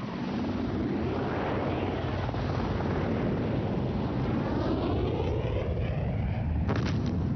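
AH-64A Apache attack helicopter in flight: steady rotor and turbine noise whose tone slowly sweeps as it moves. A short sharp burst comes near the end.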